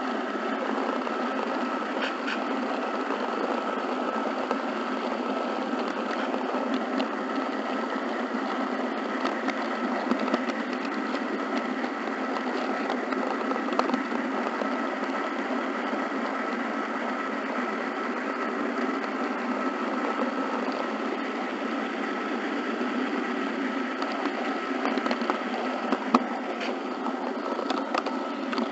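HO scale model train running along the track, a steady mechanical whir with a faint steady whine and occasional sharp clicks, the loudest one near the end.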